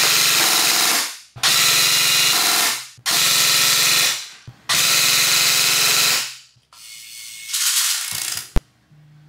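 Electric airsoft rifle (AEG) firing full-auto bursts of BBs through a chronograph at about 21 rounds a second: four bursts of roughly a second and a half each, with the gearbox cycling at a steady rate. Near the end a quieter mechanical whir, then one sharp click.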